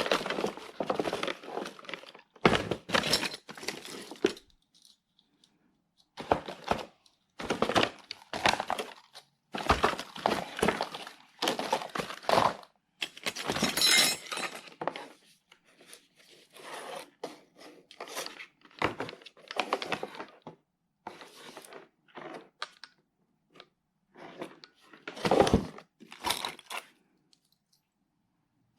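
Tools and their packaging being handled: irregular rustling, crinkling and tearing with knocks and clatters, in spells of one to two seconds with pauses between them.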